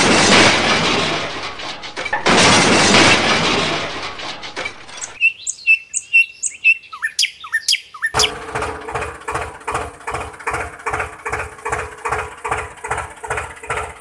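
Two bursts of loud rushing noise, then birds chirping for a few seconds, then a steady chugging tractor engine at idle, about three beats a second over a low hum.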